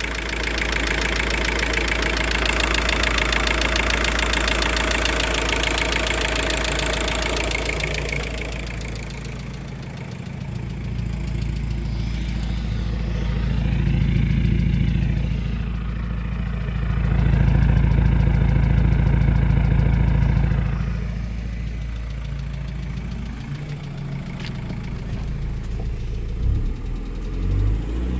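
Volkswagen Passat 1.9 TDI four-cylinder diesel engine idling with fresh oil, left running so the new oil circulates through the engine. About 8 seconds in the sound turns duller and lower, with a couple of swells in loudness.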